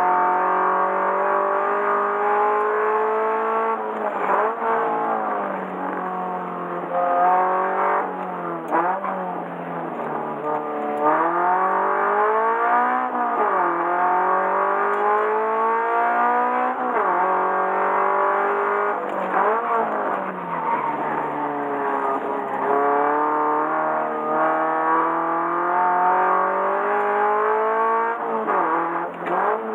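Subaru BRZ's 2.0-litre flat-four engine driven hard. The revs climb over several seconds and then drop back sharply, again and again, as the car accelerates, shifts and brakes.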